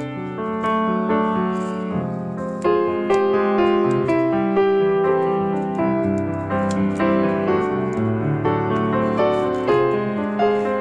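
Background instrumental music with a piano melody and chords.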